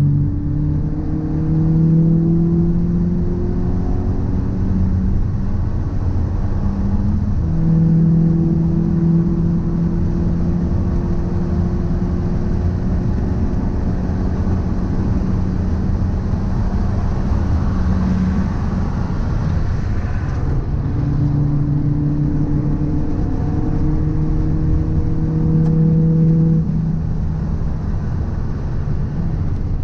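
Car being driven: the engine note climbs slowly and drops back three times, as at gear changes, over a heavy low rumble. The rumble is the abnormal noise and vibration that the owner suspects comes from a drive shaft or a wheel hub.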